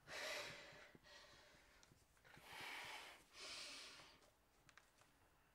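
A woman's heavy, frustrated breaths: a sharp one at the start, then two more close together a little past halfway.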